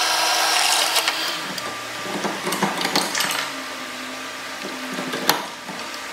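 Electric drill boring a hole in the clutch pedal, running steadily and stopping about a second in. A few light metal clicks and knocks follow as the part is handled, with one sharp click near the end.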